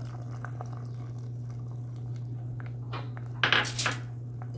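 Soaked sago pearls being tipped from a bowl into a pan of bananas in sugar syrup. A few soft taps, then a short cluster of sharp clinks about three and a half seconds in as utensils knock against the pan, over a steady low hum.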